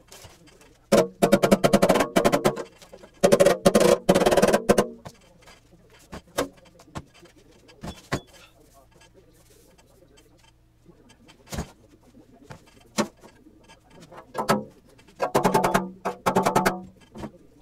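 Steel engine oil pan knocking and rattling against a wooden workbench as it is turned over and handled, with a hollow metallic ring. The clattering comes in short bursts of quick knocks, the first two close together early on and another near the end, with single knocks scattered between.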